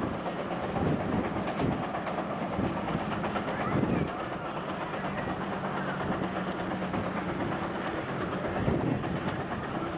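1914 Rumely 20-60 tractor working under load pulling an eight-bottom plow: a steady, rapid exhaust beat over a continuous mechanical rumble.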